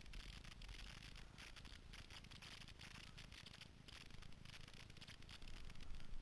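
Snowboard sliding over firm, chunky snow: a faint, uneven scraping hiss that swells and dips, over a low rumble.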